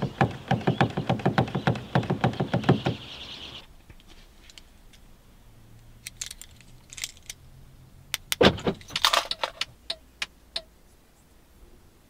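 The locked door handles of a Mercedes-Benz W212 are yanked repeatedly, making a fast run of clunks, about four a second, for some three seconds, and the anti-theft alarm does not sound. Then come a few clicks, a single thump and a brief jingle of keys as the key fob is handled.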